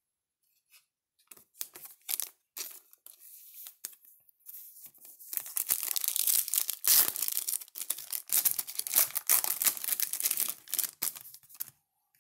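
A trading-card pack wrapper being handled, torn open and crinkled. It starts with a few light crackles, then about seven seconds of dense tearing and crinkling from about four seconds in.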